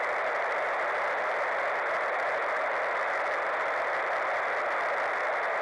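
Steady hiss of an FM receiver tuned to the International Space Station's VHF downlink while the station is not transmitting: the pause between the astronaut's answers, when only static comes through.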